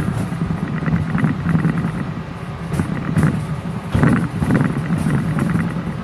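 Miniature ride-on electric train running along its track: a steady low hum with rapid clicking from the wheels on the rails, and one sharp knock about four seconds in.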